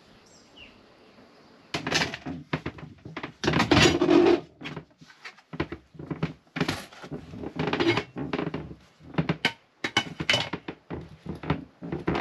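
Irregular thumps, knocks and clatter of hands and gear working an engine compartment hatch under a berth. It starts about two seconds in, and the loudest bunch of knocks comes near four seconds in.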